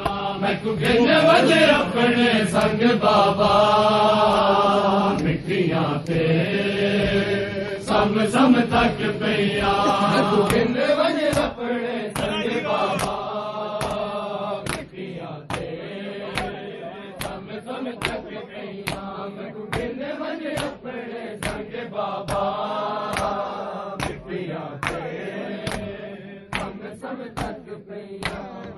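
Men chanting a mourning lament (nauha) while beating their chests in matam, the open-hand slaps landing in a steady rhythm about twice a second under the voices.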